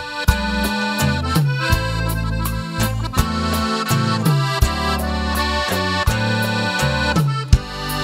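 Norteño band playing an instrumental passage led by a Ballington button accordion, over a low bass line and drum hits.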